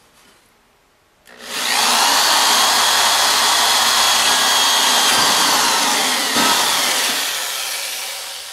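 Corded electric drill with a 13/32-inch bit boring through 3/4-inch PVC pipe, running steadily. It starts about a second in and tapers off near the end.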